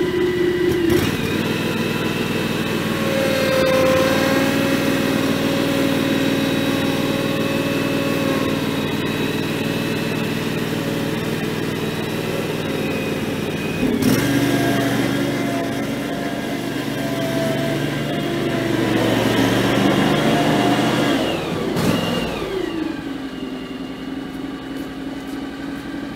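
John Deere X738 garden tractor's three-cylinder diesel engine running as the tractor drives forward off its mower deck. The engine note changes suddenly about halfway through, and near the end it falls in pitch and grows quieter as the tractor pulls away.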